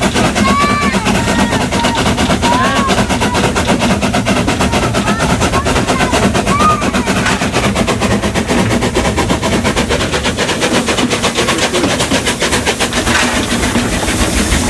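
Steam tram locomotive with a vertical boiler working under way, heard from its footplate, its exhaust beating in rapid, even chuffs.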